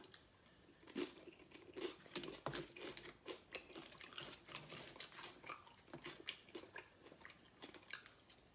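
A person chewing crunchy tortilla chips: many short, faint crunches in an uneven run.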